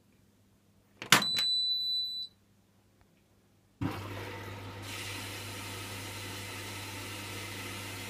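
Hotpoint washing machine starting a cycle. About a second in there is a click and one steady high beep lasting about a second. About four seconds in, steady rushing water starts and gets brighter a second later, the sound of the drum filling through the inlet valve.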